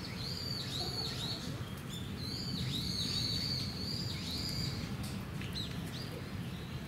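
A steady run of short, high chirping calls, a few every second, each note arching and then dipping in pitch, over a low background rumble.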